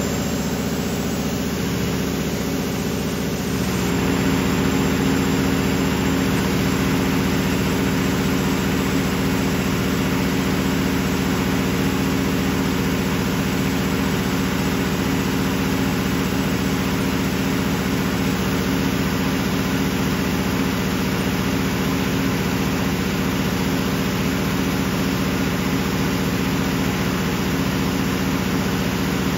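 Large Kohler 1600 kW industrial diesel generator running steadily under heavy load during a load bank test, a deep, even drone. About four seconds in, the sound grows slightly louder and its pitch shifts.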